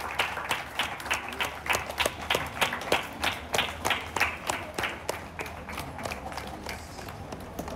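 A small group of people applauding by hand, with one clapper close by keeping a steady beat of loud claps, a little under two a second. The clapping thins out after about five seconds.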